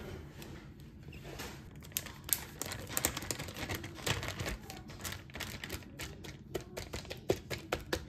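A plastic bag of blended garlic crinkling and clicking as it is handled and pressed flat by hand on a countertop. Sharp crackles come thick and fast in the second half.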